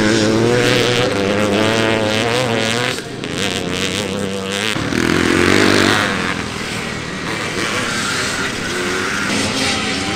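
Older twin-shock motocross bikes' engines racing on a dirt track, the pitch rising and falling as the riders work the throttle, with sudden shifts in the engine note about three seconds in and again near five seconds.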